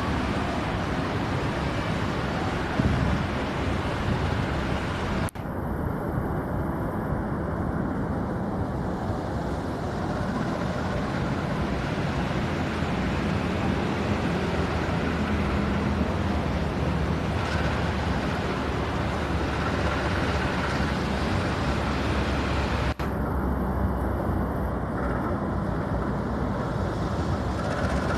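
Steady rumbling vehicle noise, heavy in the low end, broken twice by abrupt cuts where the sound jumps to a slightly different mix.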